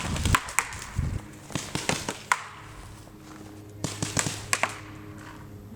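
Paintball markers firing scattered single shots, sharp pops at irregular intervals with a cluster of several a little before the end. A steady low hum runs underneath from about a second in.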